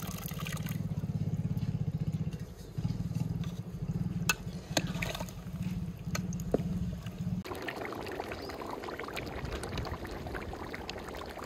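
Yoghurt being poured into a pot of chicken curry, then a ladle stirring it in, with a few sharp knocks against the metal pot over a low fluttering rumble. Seven and a half seconds in, this gives way to the even bubbling hiss of the curry boiling hard.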